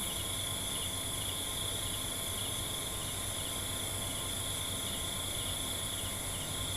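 Insects trilling steadily in a high continuous tone, over faint even background noise.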